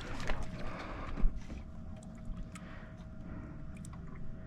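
Small fishing boat on open water: wind and water noise with a steady faint hum, a few light clicks, and one sharp thump about a second in.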